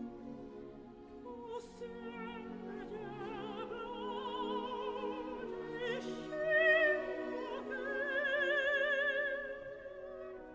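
Background music: an operatic voice singing long held notes with wide vibrato over orchestral accompaniment, swelling loudest a little past the middle.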